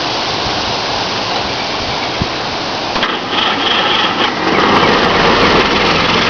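A steady rushing background noise, then about three seconds in the 1946 Willys CJ-2A's Go-Devil four-cylinder flathead engine is cranked over by the starter for about a second, catches, and settles into a steady idle.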